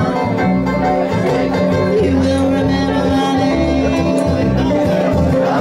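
Live bluegrass band playing, with banjo, mandolin and guitar.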